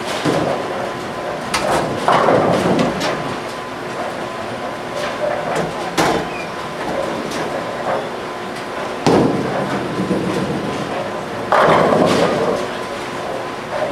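Bowling alley din: bowling balls rolling and pins clattering on the lanes, with three louder crashes and sharp knocks over a background of voices.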